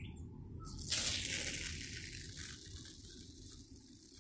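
A plastic soda bottle erupting in a soda-and-Mentos-style reaction: a sudden hissing gush of foaming soda spraying out, starting about a second in and fading away over the next two seconds.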